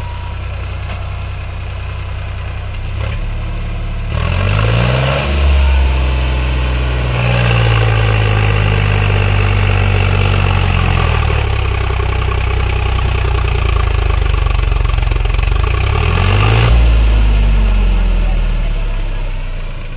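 Sonalika tractor's diesel engine idling, then revved hard about four seconds in and held at high revs under load as it strains to pull a loaded trolley out of deep sand, dropping back after several seconds; it revs up once more near the end and settles back down.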